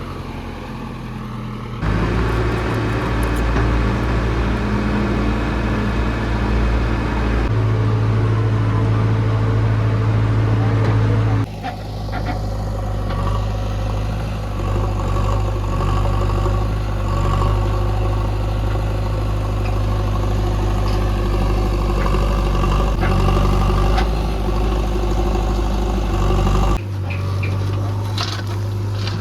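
Heavy diesel engine running steadily, its sound changing abruptly several times, with a few clicks or knocks near the end.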